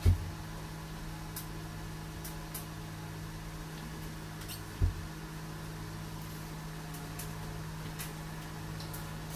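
Steady low hum of room equipment with two dull low thumps, one at the start and one about five seconds in, and scattered faint clicks.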